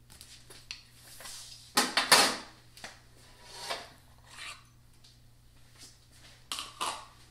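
Handling noises from scooping crushed peanuts out of a small ceramic bowl and sprinkling them: short rustles and clicks spread through, with a couple of louder knocks about two seconds in.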